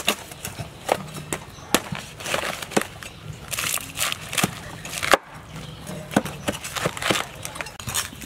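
Knife chopping and cutting into a whole roasted pig, going through crisp charred skin and rib bones: irregular sharp chops and knocks, several a second at times.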